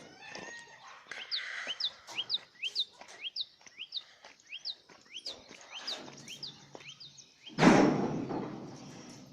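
A small bird calling over and over in quick, sharp chirps, about two or three a second, for several seconds. Near the end comes a sudden loud rush of noise that fades away.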